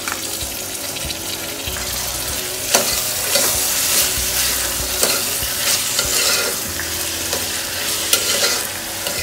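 Chopped vegetables and tomato sizzling in hot oil in a pan while they are stirred, with the spoon clicking and scraping against the pan now and then, sharply about three seconds in and again near the end.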